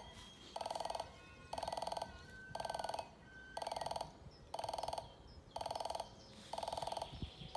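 KBB-6 level-crossing warning bell ringing in steady repeated bursts, about one half-second burst each second, signalling that the crossing is closing for an approaching train.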